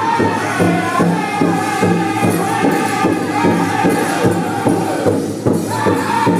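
Powwow drum group singing high-pitched in unison over a steady, even beat struck together on a large powwow drum, about three beats a second. The voices break off briefly about five seconds in while the drumbeat carries on.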